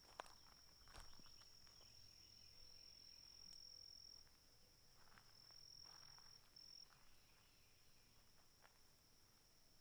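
Faint, steady high-pitched insect trill that drops out twice around the middle, with a few soft footsteps crunching on the trail near the start and in the middle.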